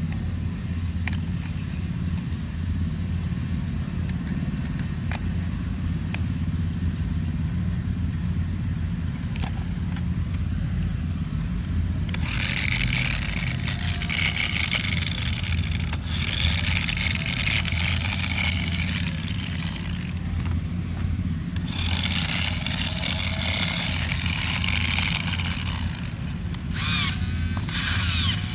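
Small electric motor of a radio-control toy whining in bursts of about three seconds each, four times in the second half, over a steady low rumble.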